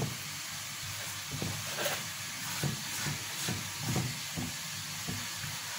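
Hands gathering and pressing soft, freshly mixed bread dough of flour and semolina in a glazed clay bowl: soft, irregular dull pats, about two a second, over a steady hiss.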